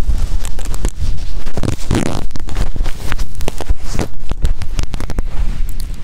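Driftwood fire crackling and popping in a small folding metal twig stove, with wind rumbling on the microphone throughout. One louder rush of noise comes about two seconds in.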